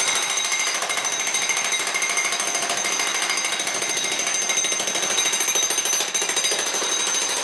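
Corded electric demolition hammer with a chisel bit chipping concrete off a foundation footer: steady, rapid hammering with high ringing tones over it.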